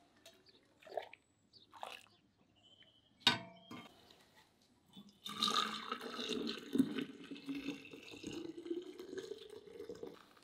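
Liquid being poured into a container for about five seconds, after a single sharp clink about three seconds in.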